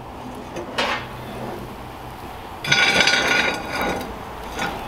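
Cast iron skillet scraping and clanking on the metal grill as it is shifted under the grill lid: a light click, then a loud ringing metal-on-metal scrape about three seconds in, followed by a few lighter clinks.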